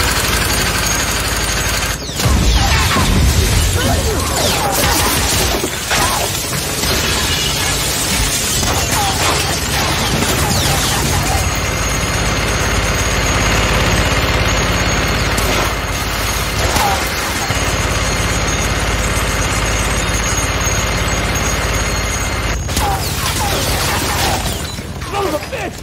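Gatling gun firing in one long continuous burst, starting suddenly about two seconds in and stopping about twenty-three seconds in, with glass shattering and debris crashing.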